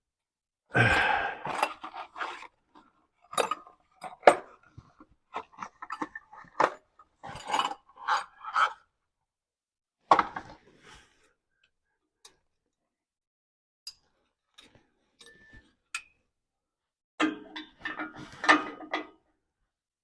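Irregular metallic clinks and rattles of hand tools and exhaust clamp hardware being handled, coming in short clusters with a mostly quiet stretch in the middle.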